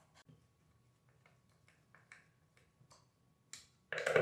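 Faint, irregular ticks and clicks of a hand screwdriver turning small screws into a gate-opener motor's metal housing, with a louder clatter near the end.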